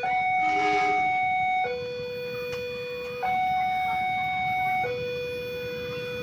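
Railway level-crossing warning alarm sounding from the crossing's horn loudspeaker. It is a steady electronic two-tone signal that alternates between a higher and a lower note, each held about one and a half seconds, warning that a train is approaching and the crossing is closed.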